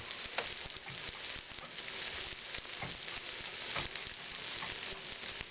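Egg and leftover fillings sizzling steadily in a frying skillet, with a few light clicks.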